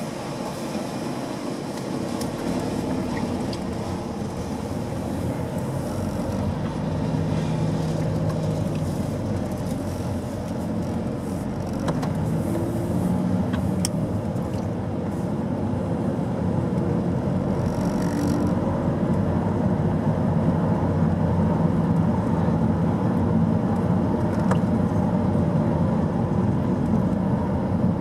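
Car driving slowly along a street, heard from inside: steady engine hum and tyre rumble on the road.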